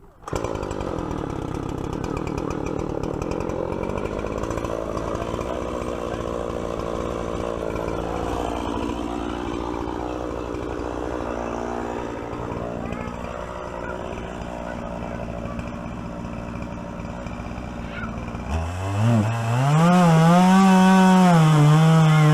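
Poulan Pro 50cc two-stroke chainsaw running steadily while ripping a log lengthwise in a chainsaw mill, its pitch wavering slightly under the load of the cut. About eighteen seconds in, it gives way to music with a gliding, synthesizer-like melody.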